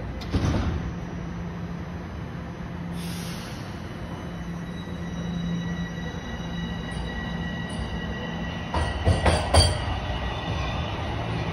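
TTC Toronto Rocket subway train pulling out of the station. A thump comes right at the start, then steady running noise with a thin whine as it gathers speed, and a quick run of sharp wheel clacks about nine seconds in as the last cars pass.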